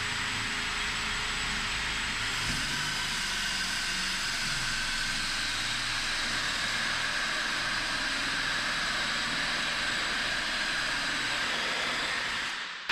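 Power drill running a 2 1/8 inch hole saw, cutting through a wooden door for the handle bore: a steady motor whine with the rasp of the saw teeth, stopping just before the end.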